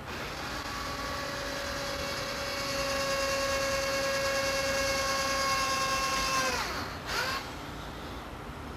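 Electric drill running steadily while drilling holes in wood for a bird feeder's front rail. It winds down with a falling whine about six and a half seconds in, then gives one short burst about a second later.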